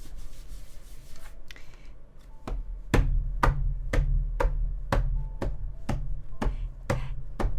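Background music: a steady knocking beat of about two strokes a second over a low drone, coming in about three seconds in after a quiet start.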